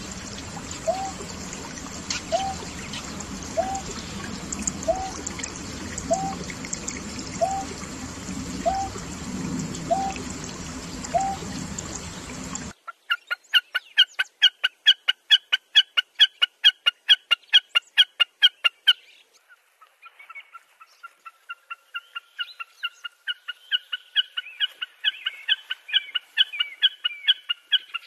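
Greater painted-snipe giving a steady series of low hooting notes, about one a second, over a steady background hiss. About 13 seconds in this cuts off suddenly to a common snipe's perched song: a fast, even ticking of about five notes a second, in two runs with a short break between.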